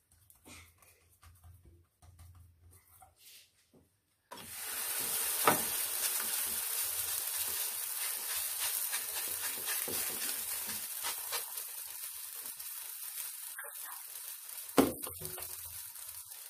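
Melwi flatbread dough laid into a hot, lightly oiled nonstick frying pan, setting off a sudden sizzle about four seconds in that carries on and slowly fades as the dough fries. Two sharp knocks come through the sizzle, one shortly after it starts and one near the end.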